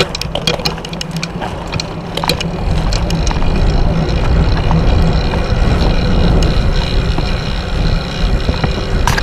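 Riding noise of a road bicycle: wind rushing over the handlebar-mounted camera's microphone along with tyres rolling on asphalt, with scattered sharp clicks. The rumble grows louder about three seconds in.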